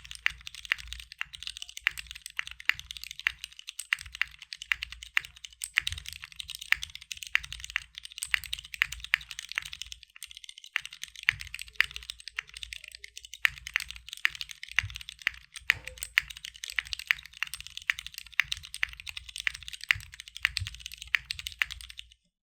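Steady fast typing on a CW88 mechanical keyboard with tactile Cherry MX Brown switches on a polycarbonate plate, DCS-profile keycaps and no case foam. There is a brief lull about ten seconds in, and the typing stops just before the end.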